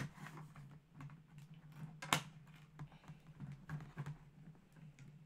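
Faint clicks and taps of hands handling small plastic doll accessories and packaging, with one sharper click about two seconds in.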